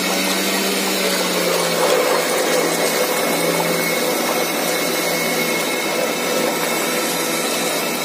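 Portable bucket washing machine running: its electric motor hums steadily while the pulsator disc churns soapy water in the plastic bucket.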